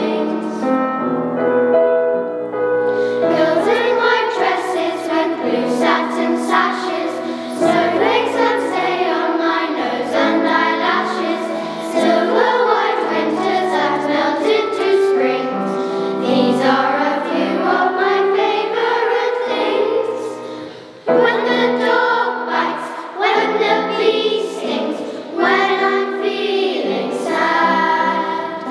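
Children's choir singing, with long held notes and a short break between phrases about two-thirds of the way in.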